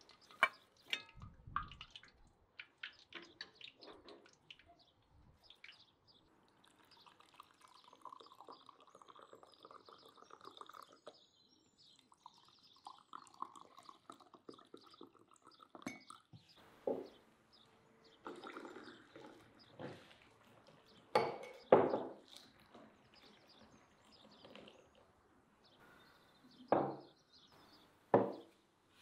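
Tea poured from a pot into two glass tumblers, two steady pours one after the other. Before it, the crisp fried crust of a cheburek crackles as a knife cuts into it; after it, several sharp knocks of glass and dishes set down on a wooden table.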